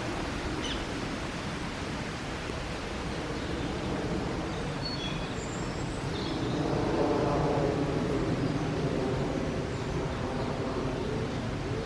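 Outdoor ambience: a steady noise bed with a few brief bird chirps, and an engine hum that swells and is loudest about seven seconds in, as a vehicle passes.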